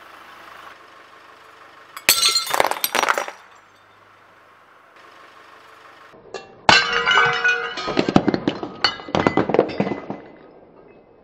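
A brief loud crunch about two seconds in, then a glazed ceramic figurine cracking and shattering under a car tyre: a run of loud crunching and clinking of breaking pieces lasting about three seconds.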